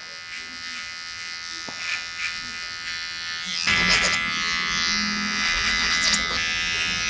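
Cordless hair trimmer buzzing steadily as it tapers hair at the edge. The buzz grows louder and fuller about three and a half seconds in.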